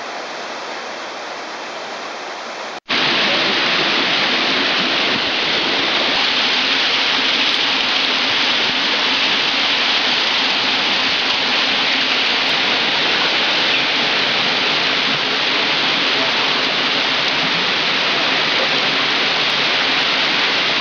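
Steady rush of a canyon waterfall. About three seconds in it cuts out for an instant and comes back louder and steady.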